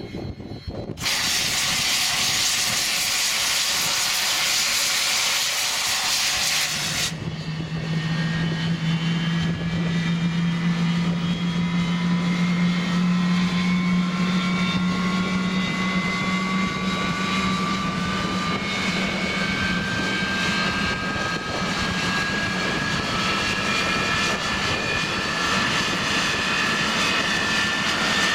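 English Electric Lightning's Rolls-Royce Avon turbojet starting. About a second in, the AVPIN starter hisses loudly for some six seconds and cuts off sharply. A low steady hum and several whines then follow, rising slowly in pitch as the engine spools up.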